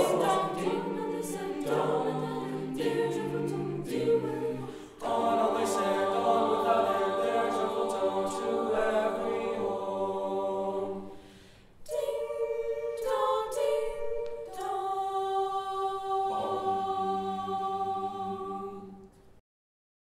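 A cappella vocal group singing a Christmas carol in close harmony, with short breaks about five and twelve seconds in. It ends on a long held chord that stops shortly before the end.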